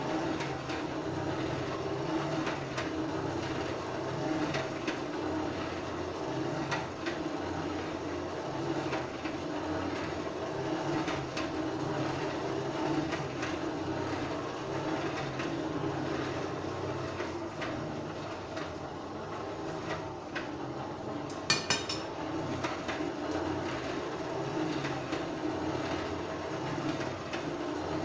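Blacksmith's forge running steadily while a steel ring heats in the fire, with a few faint ticks and one sharp metal clink about three-quarters of the way through.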